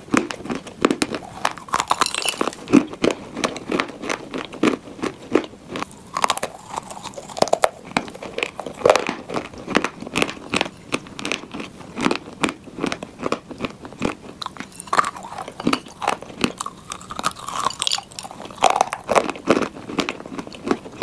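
Dry clay chunks being bitten and chewed: a dense, irregular run of sharp crunches and gritty crackles.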